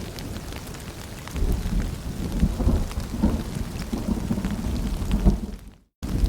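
Rain pattering and dripping with a low rumble of thunder that swells about a second in. Near the end the sound fades and drops out to silence for a moment.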